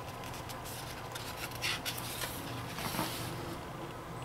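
Faint rustling and soft brushes of thick paper as a photo book's pages are handled and a page is turned, with a few short strokes between about one and a half and three seconds in, over a low steady hum.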